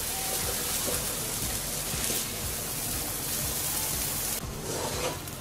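Rice and lentils sizzling as they fry in ghee in a pot while being stirred, a steady rain-like hiss that drops away about four seconds in.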